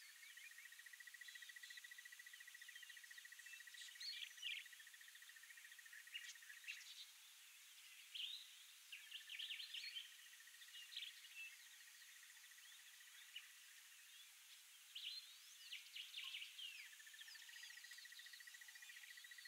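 Faint wild ambience: scattered bird chirps and calls, with a fast, even trill on one high pitch that runs for several seconds at a time, three times over.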